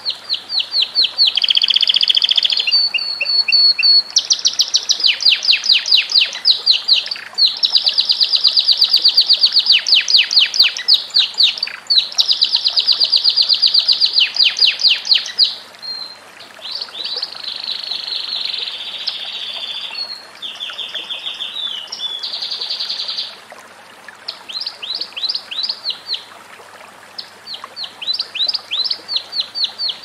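Domestic canary singing a long, fast song of trills, each phrase a rapid run of repeated high notes, changing from one trill to the next with short breaks between.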